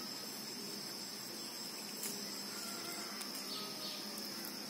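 Insects trilling steadily at a high pitch, with a few faint clicks.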